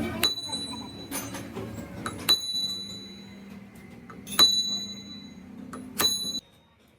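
Four sharp metal-on-metal blows, each about two seconds apart and each leaving a high, clear ringing tone, over a low steady hum. The sound cuts off suddenly near the end.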